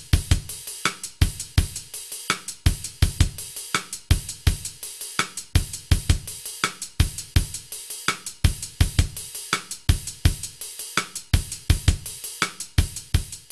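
Music with a steady drum-kit beat of kick, snare and cymbal strikes.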